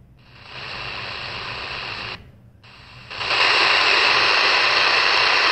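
Medium-wave static hiss from a CS 106 DSP portable radio being tuned up the AM band, cutting out briefly twice as it steps to the next frequency. The hiss comes back louder from about three seconds in.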